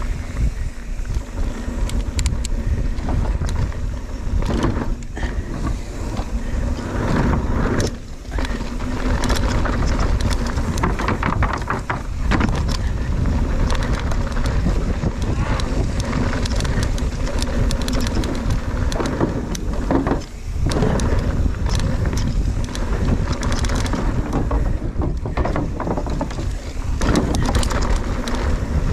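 Wind rushing over the microphone and a mountain bike rattling over rough trail at speed, with frequent knocks and clatters; it eases briefly twice.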